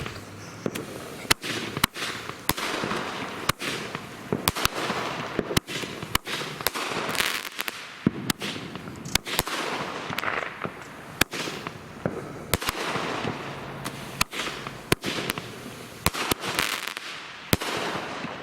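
Keystone Little Giant 200-gram aerial repeater cake firing: a quick run of sharp bangs, one or two a second, with a rushing, crackling noise between shots.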